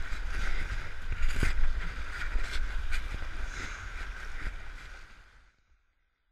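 Rushing whitewater of a flooded river splashing around a kayak as it runs rapids, with low buffeting on the microphone and scattered sharp splashes. The sound fades and cuts to silence about five and a half seconds in.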